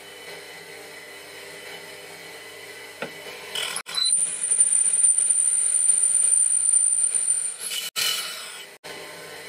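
Proxxon mill spindle running with a steady hum. For a few seconds in the middle, a coated high-speed steel twist drill cutting into stainless steel grows much louder, with a steady high whine. It then breaks off abruptly, leaving the hum again.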